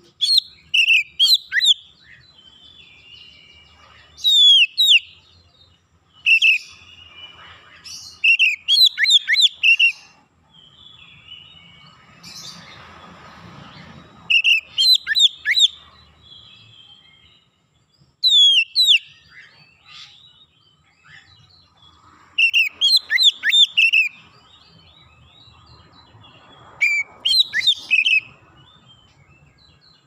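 Oriental magpie-robin singing: short bursts of loud, varied whistled notes that slide up and down, repeated every two to three seconds. A soft rushing noise comes up briefly about halfway through.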